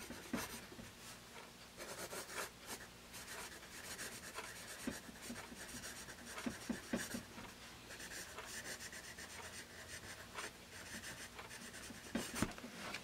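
Bostitch #2/HB wooden pencil's graphite scratching across grid paper as cursive words are written: faint, on-and-off strokes with small ticks where the point lifts and touches down.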